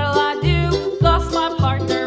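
Upbeat background music: a bouncy bass line on the beat, about two notes a second, under a bright plucked-string melody.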